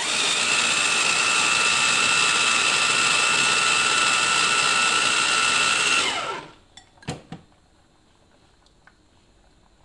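Electric mini food chopper running steadily with a motor whine for about six seconds while puréeing a pepper mixture until runny, then winding down. A couple of sharp clicks follow about a second later as the motor lid is lifted off.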